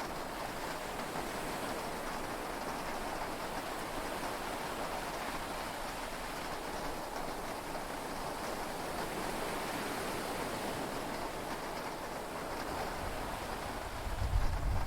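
Steady heavy rain heard from inside a yacht's cabin, with a low rumble of thunder building in near the end.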